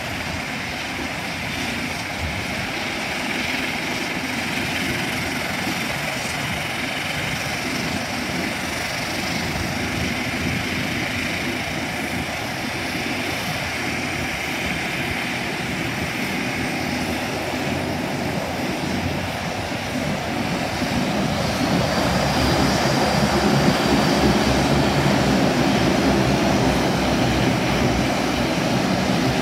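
De Havilland Canada Dash 8-400 turboprop airliner's engines and propellers running steadily as it taxis. The sound grows louder about two-thirds of the way through.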